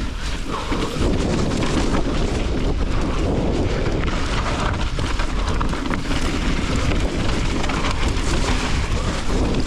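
Steady, loud rumbling noise on an action camera's microphone as a mountain bike rides over a wet, rocky trail: wind buffeting mixed with tyre and trail rumble.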